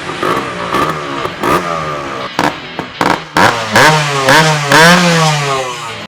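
Yamaha RX135 two-stroke single-cylinder engine with an open-cat exhaust silencer being revved in short throttle blips, the pitch rising and falling each time, with sharp cracks between revs. The revs grow louder toward the end.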